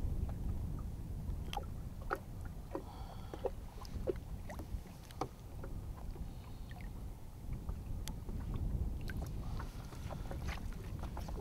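Water lapping and sloshing against the hull of a small flats boat, with scattered small splashes as a bonefish is lowered into the water and released. Wind rumbles steadily on the microphone underneath.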